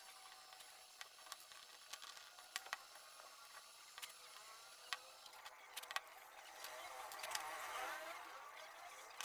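Faint handling sounds of a plastic hair dryer being taken apart: scattered light clicks and taps of the screwdriver and plastic housing parts, with a longer stretch of scraping and rubbing about seven seconds in.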